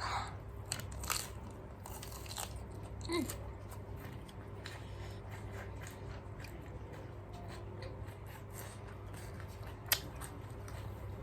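Chewing and biting cabbage, with scattered crisp crunches; the sharpest crunch comes near the end.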